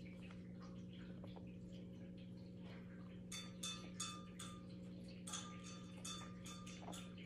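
A run of faint, irregular clicks with a slight ringing, a few a second, starting about halfway through, over a steady low electrical hum.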